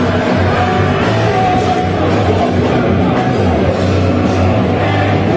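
Nu metal band playing live: distorted electric guitars and a heavy low end under a vocalist singing into a microphone.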